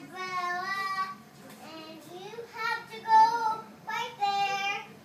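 A young girl singing a made-up song about being in her umbrella in the thunderstorm, in a few short sung phrases with brief pauses between them.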